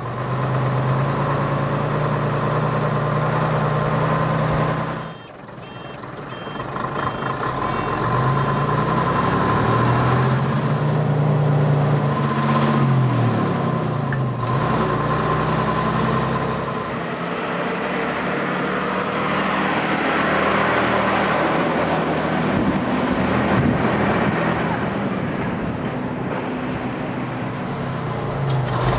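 1962 AEC Mammoth Major lorry's diesel engine heard from inside the cab while driving, its note rising and falling several times as it accelerates and eases off, with a steady high whine alongside. The sound dips briefly about five seconds in.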